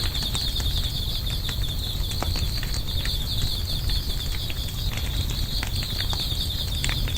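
Wood campfire crackling with scattered sharp pops, over a steady high pulsing drone and a low rumble.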